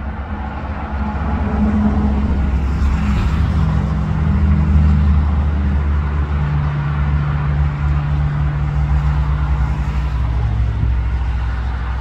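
A motor vehicle's engine running steadily: a low hum over a haze of road and wind noise, its pitch shifting slightly about six seconds in.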